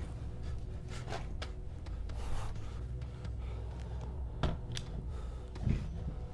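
Handling noise on a camera being picked up and moved: rubbing and scattered light knocks over a low steady rumble.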